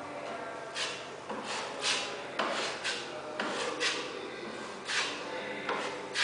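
Putty knife scraping and spreading filler putty on a concrete pool wall, a series of about ten short scraping strokes.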